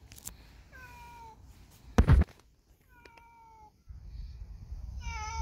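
A cat meowing three times, each call drawn out and falling slightly in pitch. A loud bump about two seconds in is the loudest sound, and a low rumble comes in near the end.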